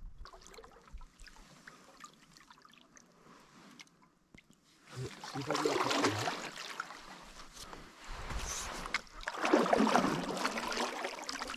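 Canoe paddle working the lake water: faint dripping and swishing at first, then two louder spells of paddle splash and trickling, about five seconds in and again near the end.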